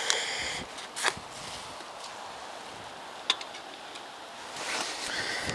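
Wind hissing steadily, building near the end, with a few light clicks and a sharper tick a little over three seconds in.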